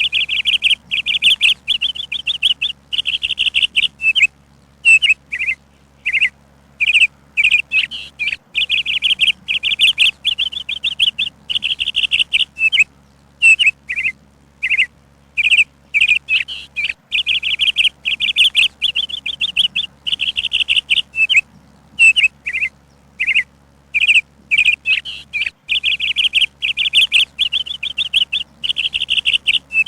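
A bird chirping and singing without pause: fast, high-pitched trilled phrases about a second long alternate with short single chirps, separated by brief gaps.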